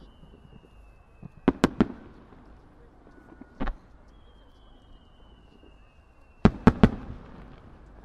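Aerial firework shells of a star mine. A thin whistle slowly falls in pitch as the shells climb, then three bursts crack in quick succession about a second and a half in. A single bang follows near the middle, then another falling whistle and another quick triple of bursts near the end.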